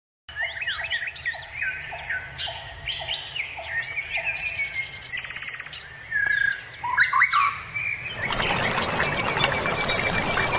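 Birds chirping and calling over one another, with a low note repeated about twice a second and a brief fast trill. About eight seconds in, the steady rush of a rocky stream takes over.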